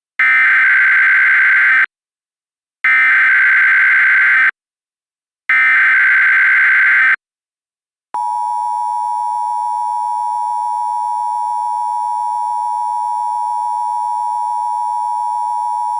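Three bursts of Emergency Alert System SAME header data, each a harsh digital screech about a second and a half long with short gaps between, followed about a second later by the NOAA Weather Radio 1050 Hz warning alarm tone, one steady high tone held for about eight seconds. Together they announce the start of an emergency alert broadcast.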